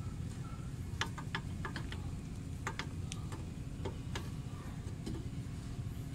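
Light metallic clicks and taps in irregular clusters as a Mitsubishi Lancer's rear drum brake shoe, springs and adjuster are handled and seated on the backing plate, over a steady low rumble.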